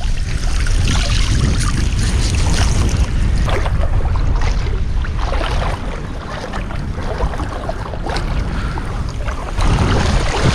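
Wind buffeting the microphone as a steady low rumble, over surf and water washing and splashing.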